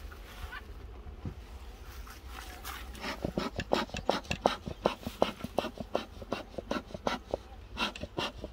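Bee smoker's bellows pumped in quick puffs, about four or five a second, starting about three seconds in.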